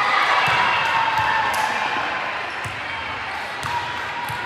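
Voices of players and spectators talking and calling out in a gym between volleyball rallies, louder in the first second or so, with a volleyball bouncing on the hardwood floor several times.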